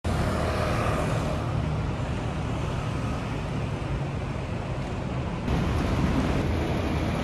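Steady city street traffic noise, road vehicles running with a low rumble. The sound steps up abruptly about five and a half seconds in.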